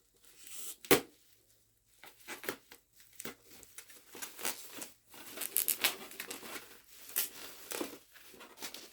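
Bubble wrap and packing tape being pulled and torn by hand, with irregular crinkling and tearing, busiest past the middle. A sharp knock sounds about a second in.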